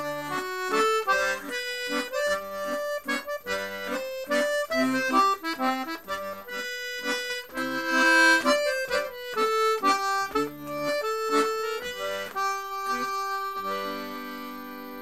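Red button accordion playing an Irish waltz tune, a flowing melody over chords. About fourteen seconds in, it settles on a held closing chord as the tune ends.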